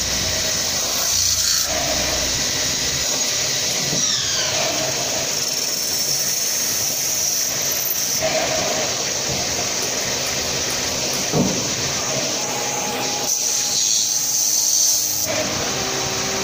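CNC metal-spinning lathe running as its roller forms a spinning metal cake-pan blank over the mandrel: a steady hissing machine noise with faint whines, its tone changing abruptly a few times.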